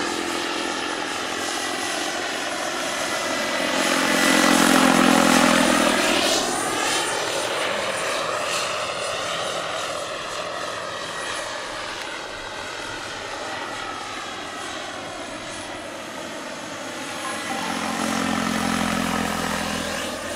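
Turbine-powered large-scale RC model helicopter (H120 / EC120 Colibri) flying: a continuous high turbine whine over rotor noise. It swells to its loudest as the model passes about four to six seconds in, then again near the end.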